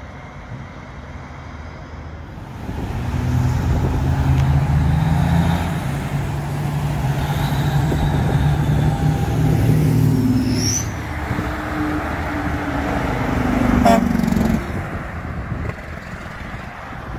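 Heavy diesel trucks driving in road traffic. An engine comes up loud about three seconds in and runs strongly for about twelve seconds before easing off. There is a short high chirp about ten seconds in and a sharp click near fourteen seconds.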